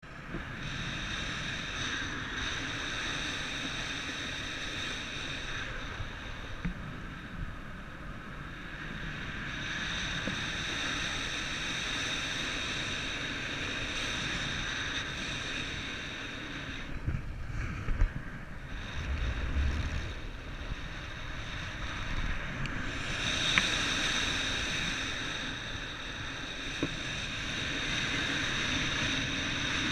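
Wind blowing, with steady rushing and a high whine that dies down twice. There are low rumbling knocks about two-thirds of the way through.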